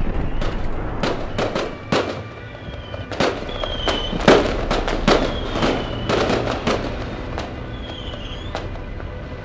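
Fireworks going off: a string of sharp bangs and crackling bursts, the loudest about four seconds in, with a few short whistles between them.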